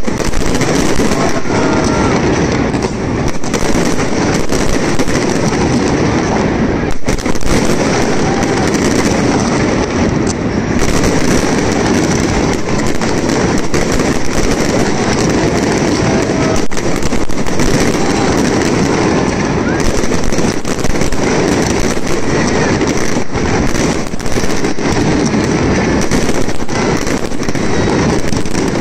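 Fireworks going off in a dense, unbroken barrage: many overlapping bangs and crackles, loud throughout.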